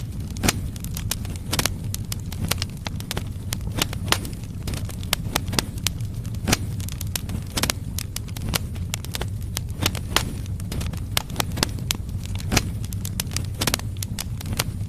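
Firewood logs burning in a fireplace, crackling and popping with many irregular sharp snaps over a steady low rumble of the fire.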